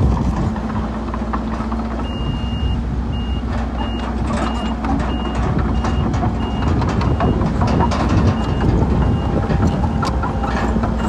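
Heavy-equipment backup alarm beeping as a machine reverses: one longer beep about two seconds in, then short beeps about every 0.6 seconds, over a steady diesel engine rumble with scattered clanks.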